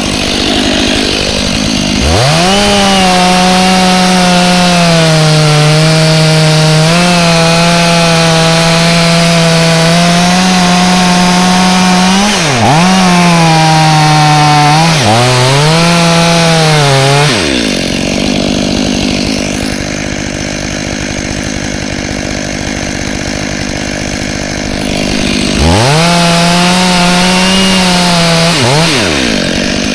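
Chainsaw running at high revs, cutting wood. Its pitch dips sharply and recovers twice, then it drops to a lower, rougher running for several seconds before revving up again near the end.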